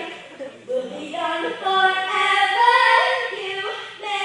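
Singing of a pop song, with long held notes, loudest in the middle, and a short dip about half a second in.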